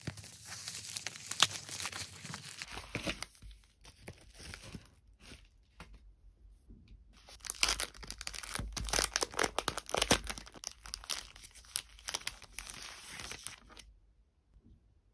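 Packaging being handled and torn open by hand: plastic and paper crinkling and tearing with many small crackles, stopping about a second before the end.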